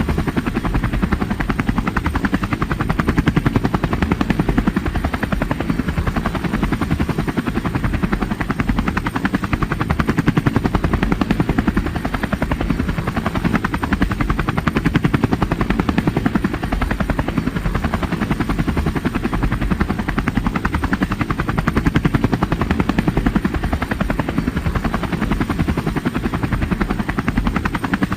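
Helicopter in flight: the rapid, even beat of the rotor blades runs steadily at constant loudness, with no change in pitch or distance.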